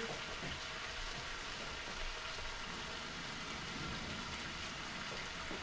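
Chicken searing in a hot frying pan, a steady sizzle.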